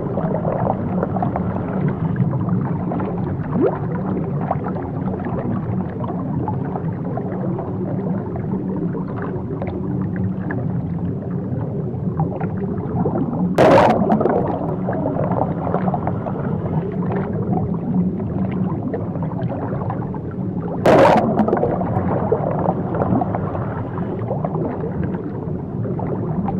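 Muffled underwater sound of turbulent water and bubbles, a steady low rumble. It is broken twice, about 14 and 21 seconds in, by short, louder splashes of water at the surface.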